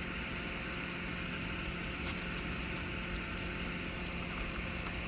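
Steady background hiss with a faint low hum, and perhaps light handling noise: room tone with no distinct event.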